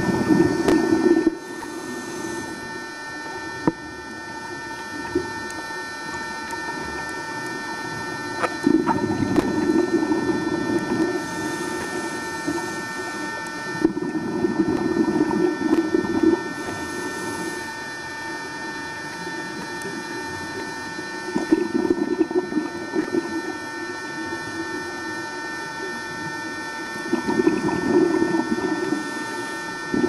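A scuba diver breathing out through a regulator underwater: five bubbly bursts of about two seconds each, spaced roughly six seconds apart, over a steady high whine.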